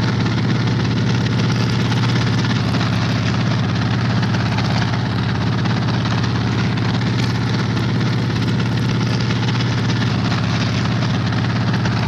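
HO4S helicopter in flight, its piston engine and rotor running with a steady, deep hum that holds level throughout.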